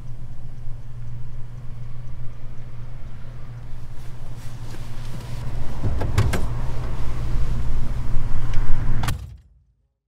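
Car idling with a steady low hum while a passenger gets out: a car door's latch clicks and the door opens about six seconds in, and it shuts with a loud thunk about nine seconds in. Right after that the sound cuts off suddenly.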